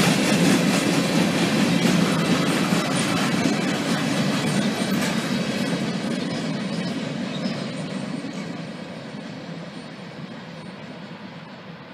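Freight train flatcars rolling past on the rails, wheels clattering over the track, the sound fading steadily as the end of the train moves away.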